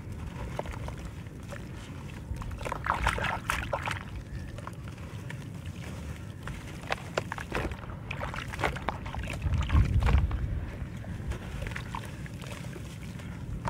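Wet dirt blocks squeezed and crumbled by hand over a tub of muddy water: crackling crumbles, water sloshing, and crumbs and wet clumps pattering down into the water, with a louder low thump about ten seconds in.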